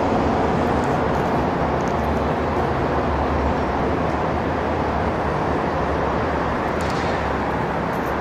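Steady road traffic noise, a continuous rumble of passing vehicles without any single standout event.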